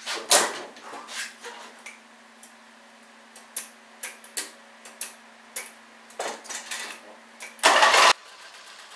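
Scattered clicks and knocks as a rider climbs onto a Murray riding mower, then near the end a short loud burst as its 14.5 hp engine is cranked and catches, settling into a steady run.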